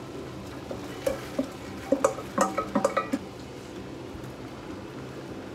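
Diced onions tipped from a stainless steel bowl into a steel pot of frying minced meat, with a quick run of ringing metal clinks and scrapes of the bowl and wooden spoon against the pot between about one and three seconds in, over a steady low frying sizzle.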